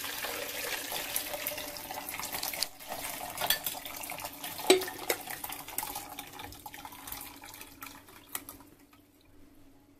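Hot ginger infusion poured from a stainless steel pot through a metal mesh sieve into a plastic jug: a steady splashing stream with a few light clinks, thinning and dying away near the end.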